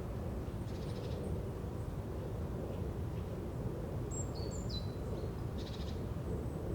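Forest ambience: a steady low rumble with small birds calling high above it, a brief buzzy trill about a second in and again near the end, and a few short whistled notes stepping down in pitch around the middle.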